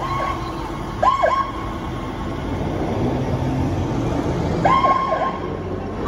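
Emergency vehicle siren giving short chirps, each a quick falling-and-rising sweep in groups of two or three: one at the start, one about a second in, and one near five seconds. A vehicle engine rumbles low underneath.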